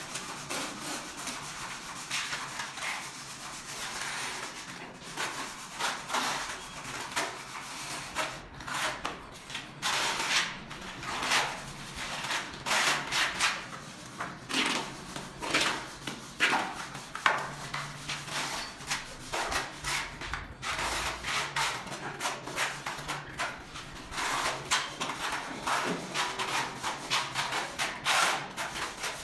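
Steel trowels scraping and spreading grey tile adhesive across a concrete floor, and a notched trowel combing it into ridges: repeated, irregular scraping strokes.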